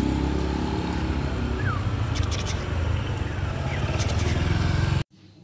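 Street traffic with motor vehicles, likely including motorbikes, running steadily with a deep engine hum. It stops abruptly near the end.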